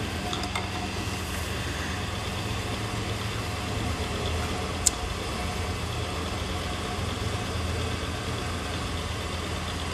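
Pillar drill press running with a steady hum as its twist drill, about 11 mm, cuts smoothly into a metal workpiece under hand feed. A single sharp click about five seconds in.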